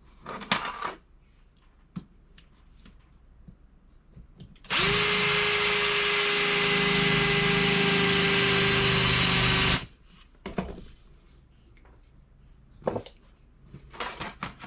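Power drill spinning a roll crimp tool to crimp a shotgun shell hull shut, running for about five seconds. It spins up quickly to a steady whine and stops abruptly, with a few light handling taps before and after.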